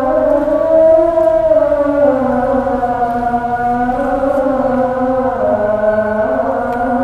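A muezzin's voice calling the isha adhan, one long drawn-out melismatic line that slides slowly in pitch and steps down about five seconds in.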